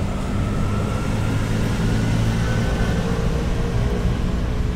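Steady low rumble of city traffic, with a faint engine drone.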